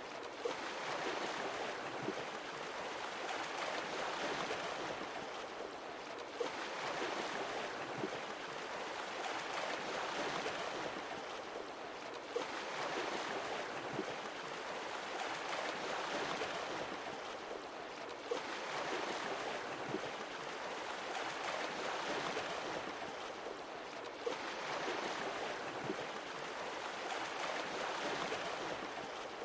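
Sea waves washing in, swelling and falling back in a slow cycle about every six seconds, with a few brief sharp clicks.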